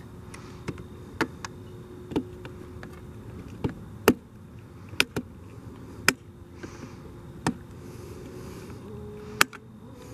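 A flying insect buzzing close to the microphone, a steady hum that wavers and shifts pitch near the end. About a dozen sharp clicks come at irregular times through it, the loudest about four and nine seconds in.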